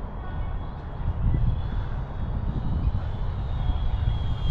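Gusty wind buffeting the microphone in a low, uneven rumble, with a thin steady whine from the small electric RC plane's motor and propeller flying overhead.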